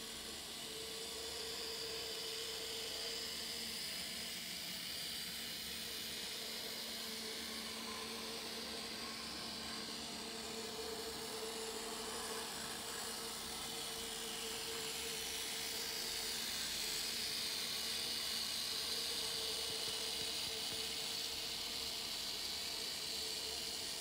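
Z-gauge model train running on the layout: the steady whine of a small locomotive's electric motor with wheels hissing on the rails, the hiss growing louder in the second half.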